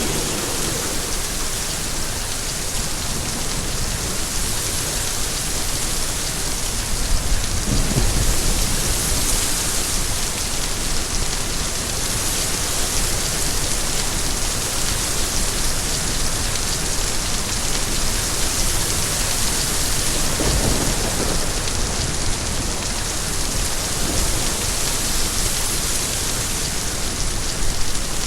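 Steady heavy rain, a dense even hiss of drops, with low rumbles of distant thunder swelling twice, around 8 seconds in and again around 21 seconds in.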